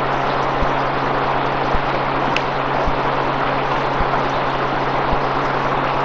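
Steady hiss of a heavily gain-boosted field recording, with a low hum and faint low thumps at a regular beat of about one a second. A single sharp click comes about two and a half seconds in.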